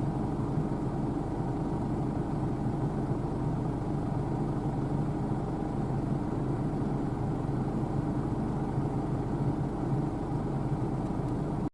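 New Holland TC5.80 combine harvester running steadily, a constant low engine drone.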